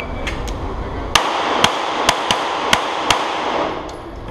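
A quick string of about six pistol shots, roughly half a second apart, echoing off the concrete-block walls of an indoor range, fired in an IDPA stage just after the shot timer's start beep.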